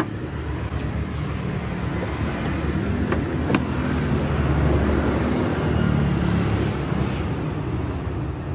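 Steady low rumble of background noise, with two sharp clicks about half a second apart roughly three seconds in.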